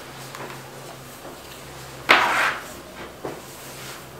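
Hand kneading soft fresh chhana curd against a stone tabletop: faint rubbing and pressing sounds, with one louder push-and-scrape about two seconds in.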